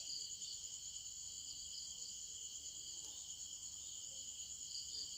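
A steady, faint chorus of insects trilling high, like night crickets, with a faint click about three seconds in.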